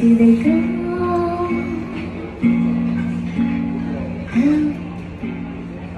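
A woman singing a bossa nova ballad in English, accompanying herself on a nylon-string classical guitar. She holds long notes and slides up into a couple of them.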